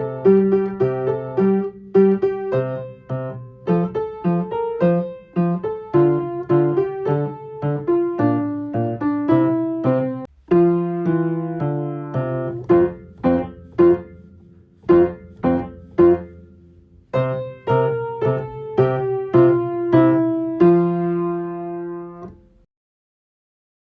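Solo piano playing a simple children's-song accompaniment: a melody in the right hand over single bass notes in the left. It ends on a held chord about 22 seconds in.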